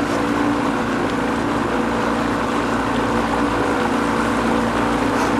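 Motor of a river raft running steadily at low speed, a constant engine hum.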